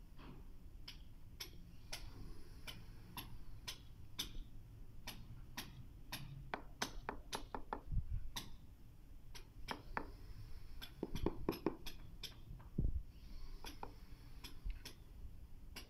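Rubber mallet tapping a ceramic floor tile down into a bed of tile adhesive: a steady run of light, sharp taps about two a second, with a few heavier thuds, about halfway through and again near the end.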